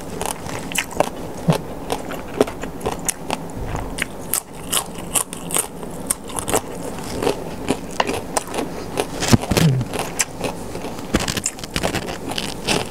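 Close-up mouth sounds of someone eating spicy Thai som tam salad: wet chewing with irregular crunches, crackles and lip smacks.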